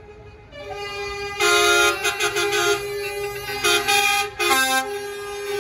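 Truck air horns sounding in a run of blasts, several tones at once like a chord, with the loudest blast about a second and a half in.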